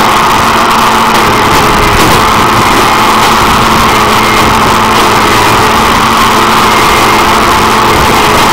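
Engine of a railroad tie extractor-inserter machine running steadily at close range: a loud, even drone with a steady hum underneath.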